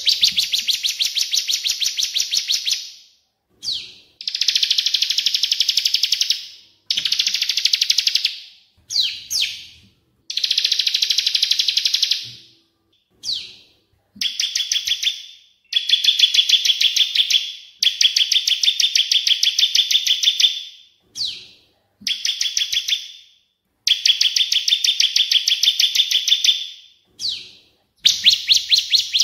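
Chestnut-winged cuckoo (cililin) and bar-winged prinia (ciblek) singing, mixed together as a bird-training track. Long, rapid, high trilled phrases of two to three seconds repeat about ten times with short gaps, and brief sweeping calls come between them.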